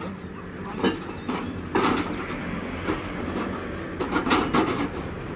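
Metal clanks and rattles as a small motorised rail trolley is pushed and set onto the rails by hand, its steel wheels knocking on the track. There are sharp clanks about a second and two seconds in, and a quick cluster of them a little past four seconds.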